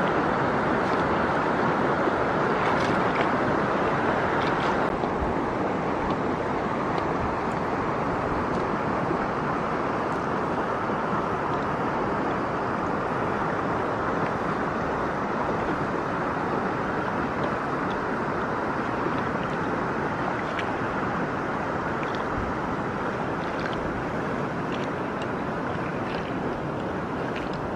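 Steady wind noise rushing over the microphone outdoors, thinning a little about five seconds in, with faint scattered ticks above it.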